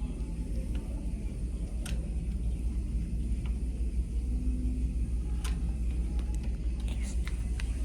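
Steady low hum of a cruise ship corridor, with a few sharp clicks as a key card is tried against a cabin door lock that will not open.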